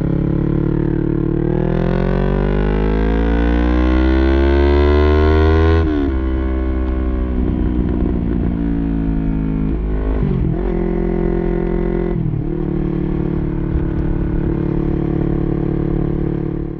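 Yamaha YZF-R3's parallel-twin engine through an Arrow Pro-Race full exhaust system, running loud. The revs climb steadily for about four seconds, fall off abruptly, then hold steady with two brief dips later on.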